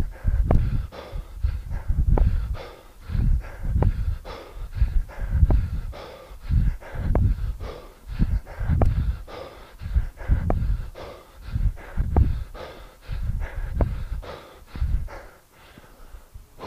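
A man's sharp, forceful breaths in a steady rhythm, one with each two-handed kettlebell swing, a little more than one a second, thumping on the microphone. They stop about a second before the end as the set finishes.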